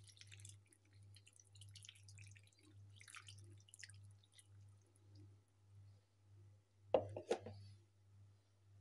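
Chicken broth poured from a jug into a bowl of shredded chicken and grated beet, a faint trickle and splash that fades after about four seconds. A brief louder sound comes about seven seconds in.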